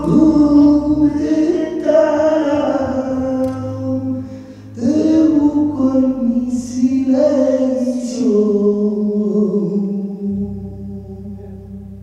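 Male flamenco singers singing unaccompanied, in long held, wavering notes: one phrase, a short breath about four and a half seconds in, then a second phrase that fades away near the end.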